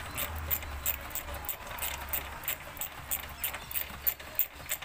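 Ratchet wrench clicking as it undoes an 8 mm bolt, a quick run of about four or five clicks a second, over a low hum that fades about halfway through.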